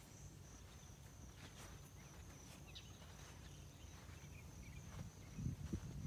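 Faint outdoor ambience: a steady high insect drone with a few faint bird chirps, and a couple of soft thumps near the end.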